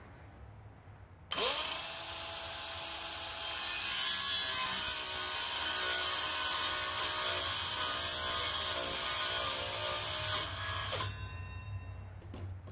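Cordless circular saw spinning up with a quick rising whine about a second in, then cutting through a plywood strip for about seven seconds, and winding down with a falling whine near the end.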